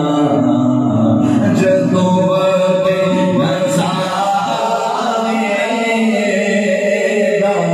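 Male voices singing a naat, an Islamic devotional song, unaccompanied, with long held notes.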